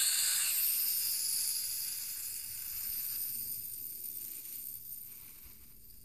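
Small toy quadcopter's motors and propellers whining at full throttle, a high buzz that comes on suddenly and then fades over several seconds.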